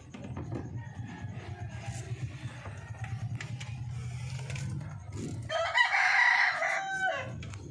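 A rooster crows once, a single call of nearly two seconds that starts about five and a half seconds in, is the loudest sound here, and falls in pitch at the end. Before it there is a low steady hum with a few light clicks.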